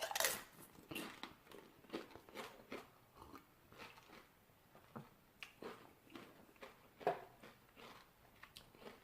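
Faint, irregular clicks and crunchy noises in a quiet room, loudest at the very start and about seven seconds in, with no music playing.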